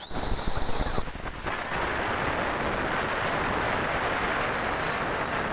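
Angle grinder with a cutting disc spinning up with a rising whine, then from about a second in running steadily loud as it cuts off a bolt fitted into a motorcycle crankcase.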